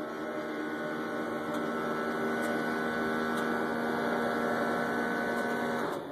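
Braun UVL wheelchair lift's electro-hydraulic pump motor running steadily as it raises the platform, a level hum that grows slightly louder and cuts off just before the end when the lift reaches the door.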